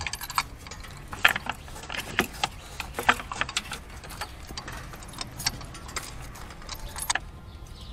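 Irregular light metallic clicks and clinks of a socket wrench and extension working a spark plug on a Subaru EJ20 boxer engine, as the plug is threaded into the cylinder head.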